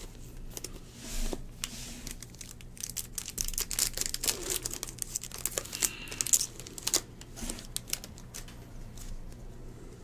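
A Bowman baseball card pack's wrapper being torn open and crinkled in the hands. It makes a dense crackle that is loudest in the middle few seconds.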